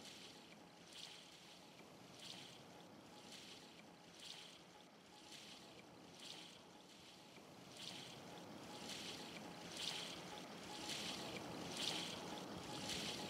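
Faint, even wash with a soft swishing hiss repeating about once a second, growing louder in the second half.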